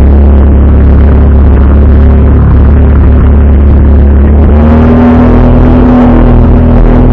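Jet ski engine running at speed as the hull slaps through choppy water. About four and a half seconds in, the engine settles onto a steady, higher note and the splashing gets brighter.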